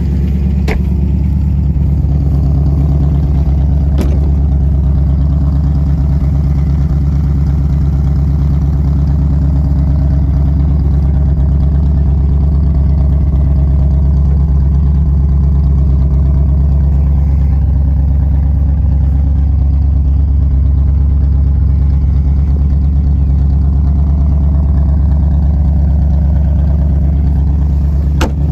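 1964 Studebaker Avanti's V8 engine idling steadily. A few sharp clicks sit on top: about a second in, at about four seconds, and near the end.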